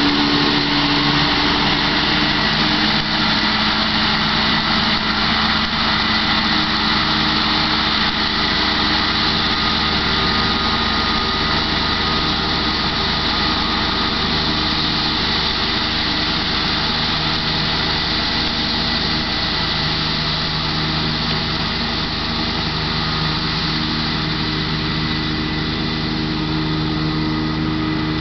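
Massey Ferguson 6130 tractor engine running steadily as it drives a Kuhn GMD 600 disc mower cutting hay. The sound gets slightly quieter as the tractor moves away.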